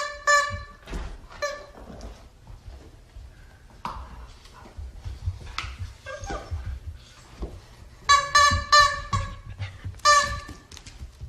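Husky yipping in quick runs of short, high, howl-like cries, right at the start and again about eight and ten seconds in. Scuffling knocks fall in between, from dogs playing tug-of-war over a toy.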